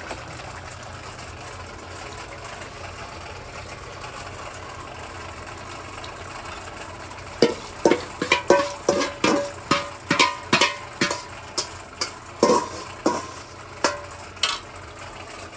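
A metal spoon scraping and knocking against a metal bowl as a paste is scraped out into a kadai. The run of short ringing clinks, roughly two a second and uneven, starts about halfway through, over a steady low hiss.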